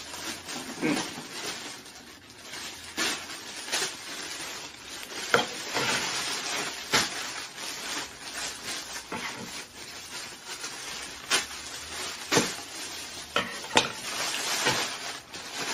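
Clear plastic bag crinkling and rustling as it is pulled open and the item inside is worked out, with many sharp crackles.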